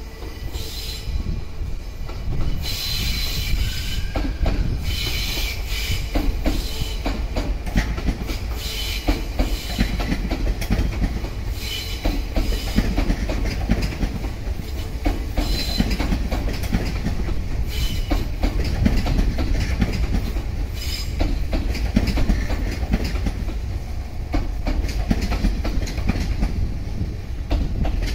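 Sotetsu 21000 series electric train running past, its wheels clicking over the rail joints in a steady clatter over a low rumble, with high wheel squeal coming and going.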